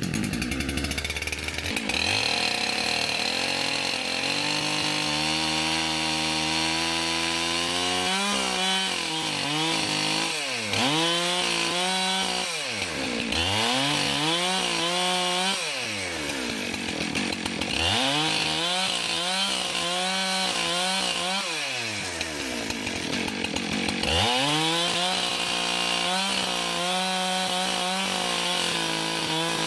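Husqvarna 372XP two-stroke chainsaw with a 24-inch bar bucking a log. It runs at steady high revs at first; then, about eight seconds in, its pitch keeps dropping and climbing again as the chain bogs down in the wood and frees up.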